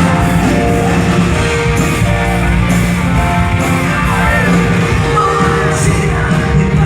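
Live rock band playing with singing and guitar, loud and continuous, echoing in a large hall.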